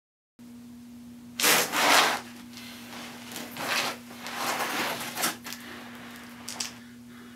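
Irregular bursts of rough scraping and rustling, the loudest about a second and a half in, over a steady low hum.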